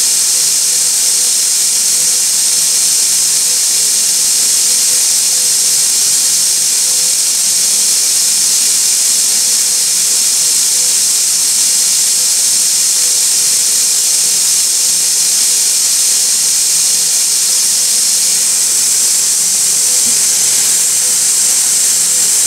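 CNC nylon tube bending machine giving off a steady, loud hiss, with a faint steady hum underneath.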